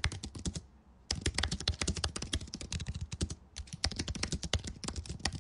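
Rapid typing on a computer keyboard: a quick, dense run of keystrokes that pauses briefly twice.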